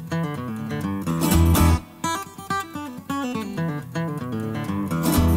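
Background music: acoustic guitar picking a quick melody over a low bass pulse.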